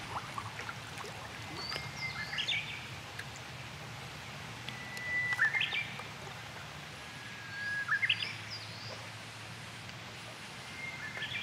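Japanese bush warbler singing its song four times, each a long held whistle that breaks into a quick flourish of higher notes.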